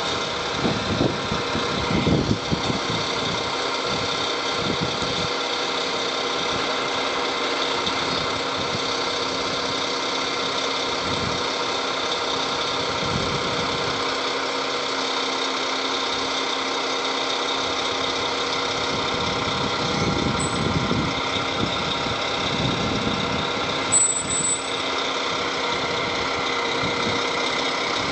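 Roll-off truck's diesel engine running while its hydraulic hoist draws a dumpster container onto the bed: a steady drone with a whine of several steady tones. A brief sharp noise stands out about three-quarters of the way through.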